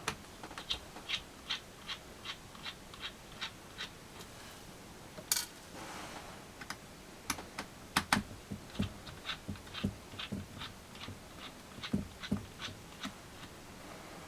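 Small light clicks and ticks of hand work on a netbook's plastic case and tiny screws, as from a small screwdriver, at first evenly spaced about two to three a second, then more irregular with a few louder taps.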